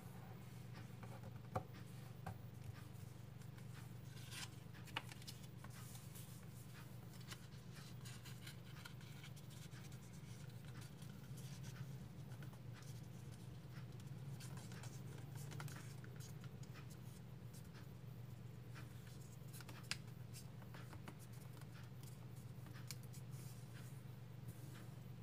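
A square of origami paper being folded and creased by hand: faint rustling and scratching as fingers press and slide along the folds, with a few sharp clicks, over a steady low hum.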